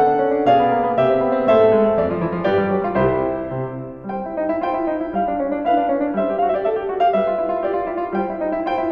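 Background piano music, a melody of single notes over chords, with a brief pause about four seconds in before the playing picks up again.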